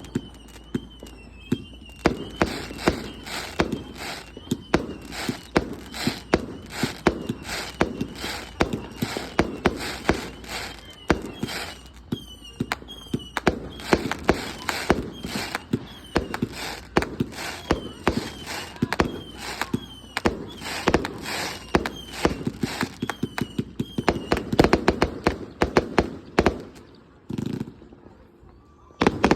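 Consumer fireworks going off in rapid succession: sharp bangs and pops, several a second, almost without a break. A faint warbling high tone rises and falls behind the bangs through much of it. The barrage drops away for about a second near the end.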